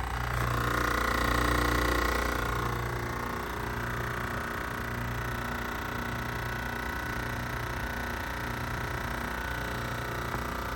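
Carrier Comfort A2L heat pump outdoor unit running: a steady low hum with a higher whine that swells for a couple of seconds near the start, then settles.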